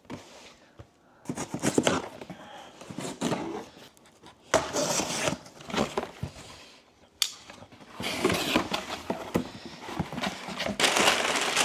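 Cardboard box and paper packing being handled and opened: irregular rustling, scraping and a few sharp knocks, turning into denser crinkling of paper near the end.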